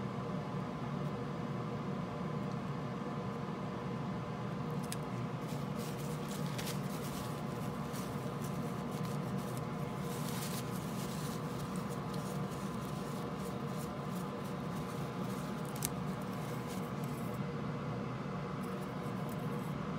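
Cotton swab rubbing on a printed circuit board and the board being handled on the bench: a run of light scratches and small clicks from about five seconds in, thinning out near the end, over a steady hum and hiss.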